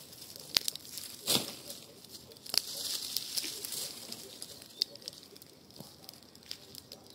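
Campfire of pruned garden branches burning in a fire bowl: scattered sharp crackles and pops, one louder pop about a second in, and a high hiss for a second or so around the middle.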